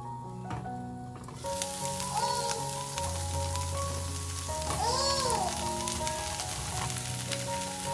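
Cauliflower and cubed zucchini sizzling in a frying pan, with small crackles; the sizzle starts about a second and a half in. Soft background music plays under it.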